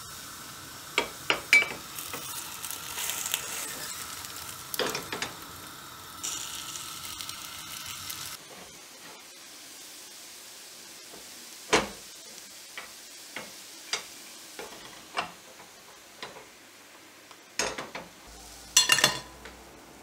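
Cookie batter sizzling in a hot metal nut-cookie mold on a gas burner, with sharp metal clinks and knocks from the mold and a spoon. About eight seconds in the sizzle stops, and scattered clinks and knocks of handled dishes follow, with a louder cluster of them near the end.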